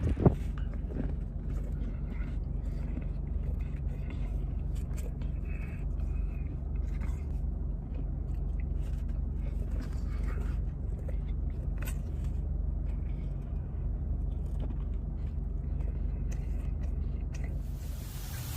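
A steady low mechanical hum with faint, scattered scrapes and clicks over it.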